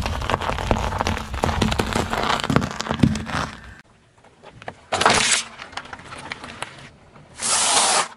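Car tyre rolling over a pile of small hard pastel eggs, crushing them in a dense run of cracks and crunches over a low tyre rumble. After a short lull come two short, loud bursts of crushing noise as the tyre flattens the next objects: plastic yogurt cups, then dry pasta.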